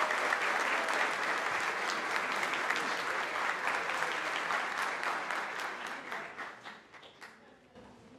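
Audience applauding; the applause fades over the last few seconds to a few scattered claps.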